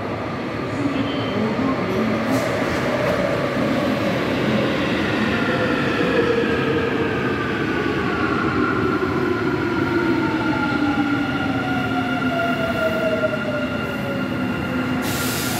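Busan Metro Line 2 subway train running into the station and slowing, its electric motor whine falling steadily in pitch over rolling wheel and rail noise. A sudden high hiss comes in near the end.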